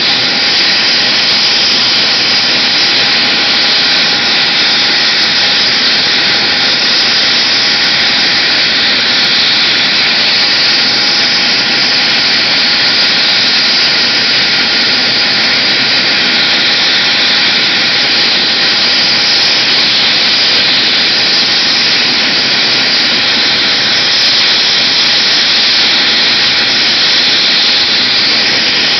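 AgustaWestland AW139 air ambulance helicopter running on the ground before lift-off: its turbine engines and turning rotor make a loud, steady whine and rush that does not change.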